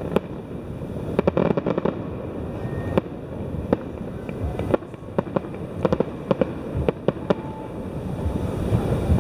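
Distant fireworks display: a rapid, irregular string of shell bursts, several bangs a second, over a steady low rumble.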